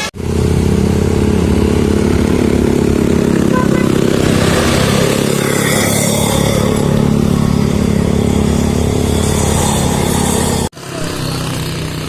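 A vehicle engine running at a steady speed, a loud, even low drone that cuts off suddenly about ten and a half seconds in.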